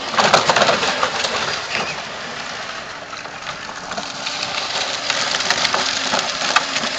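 Plastic wheels of a battery-powered ride-on toy quad rolling over gravel and dirt, a steady crunching with many small clicks and rattles, busiest in the first second.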